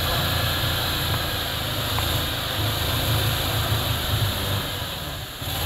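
Off-road buggy's engine running under load as it churns through deep mud, its low drone swelling and sagging with the throttle, with a steady high hiss above it.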